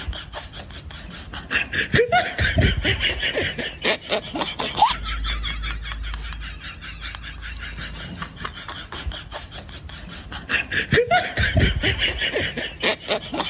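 Laughter in quick repeated bursts, rising in two louder bouts: one about two seconds in and another near the end.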